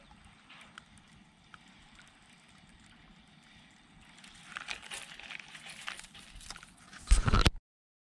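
Quiet open-air background with a few faint ticks. From about four seconds in come clicks and rustling as the rod and baitcasting reel are handled. Just after seven seconds a short burst of loud bumps hits the microphone, and then the sound cuts off abruptly.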